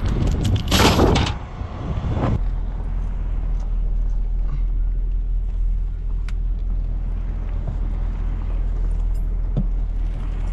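Heavy steel tow chain clanking as it is handled over a pickup bed, then a pickup's engine running with a steady low rumble, heard from inside the cab as it drives.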